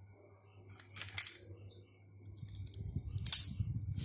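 Steamed mud crab claw being cracked apart by hand and snipped with kitchen scissors: a few sharp shell clicks, the loudest about three seconds in, over low handling rustle.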